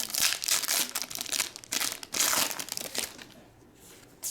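Crinkling of a foil trading-card pack wrapper being handled and crumpled, stopping about three seconds in.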